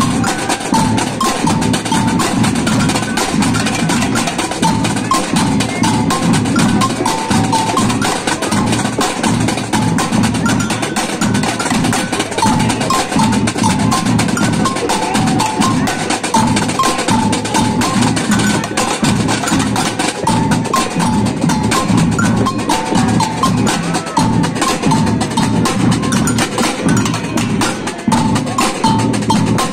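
Samba batucada drum band playing a steady groove: surdo bass drums, snare drums and repiniques in a dense, even rhythm, with a repeating two-note agogô bell pattern on top.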